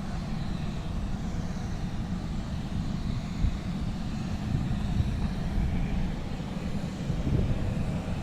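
Distant aircraft engine running steadily over a low, unsteady rumble, with a faint high whine.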